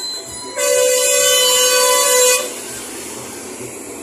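A vehicle horn sounds one steady-pitched blast of about two seconds, starting about half a second in, over the hiss of roadside traffic.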